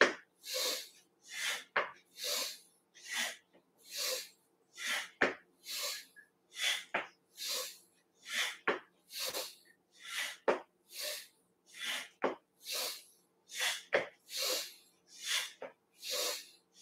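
Rhythmic swishing from arms swinging back and forth, about one and a half swishes a second, with a sharp slap or click every few seconds.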